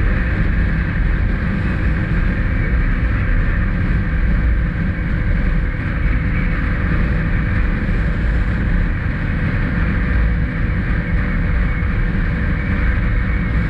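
2021 SSR XF250's single-cylinder engine running steadily under way, mixed with wind noise on the camera microphone.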